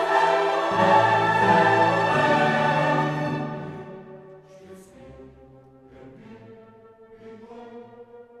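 Orchestral background music with strings and choir-like voices, loud at first and then dropping off to a quieter, softer passage after about three and a half seconds.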